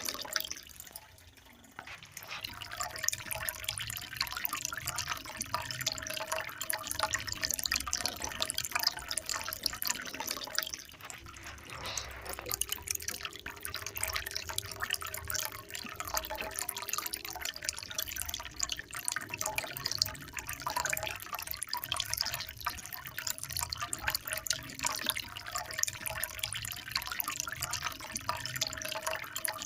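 Water trickling and splashing continuously, many small drips and splashes running together, with a brief quieter spell about a second in and another near eleven seconds.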